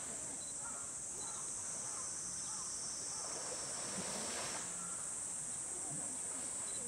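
Steady high chorus of summer cicadas, with a short rush of splashing water about three seconds in as an elephant moves in its pool.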